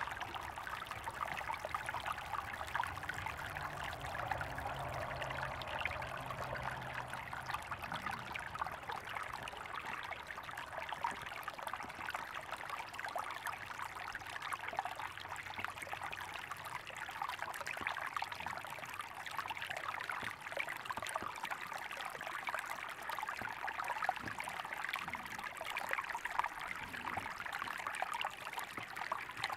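Creek water trickling and babbling steadily, a dense, even patter of small splashes.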